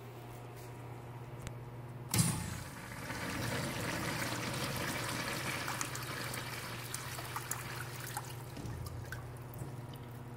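A wall-hung urinal flushed by its manual chrome flushometer valve. A sharp knock about two seconds in, then water rushes through the bowl for several seconds and tapers off near the end.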